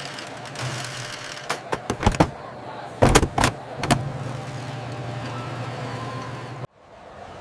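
Sound-effect ambience: a steady low hum over a noisy background, broken by a few sharp knocks about one and a half to two seconds in and a louder cluster of them around three to four seconds in. It cuts off suddenly near the end.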